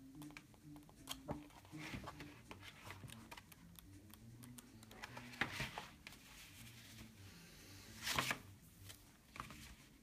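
Pages of a softcover book flipping and the book being closed and turned over on a table: soft paper rustles and flaps, loudest about five and a half and eight seconds in.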